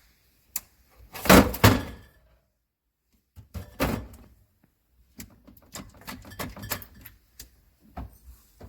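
A string of knocks and thunks, with two loud thuds about a second and a half in, then a scatter of lighter clicks and knocks.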